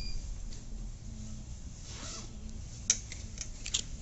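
A tram's wheel squeal dies away at the start, leaving a low steady hum inside a stopped tram, with a few light clicks near the end.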